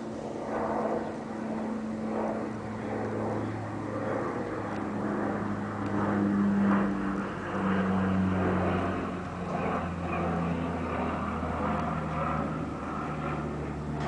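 A passing engine's steady drone, rising a little in pitch in the middle and then slowly falling over the last several seconds.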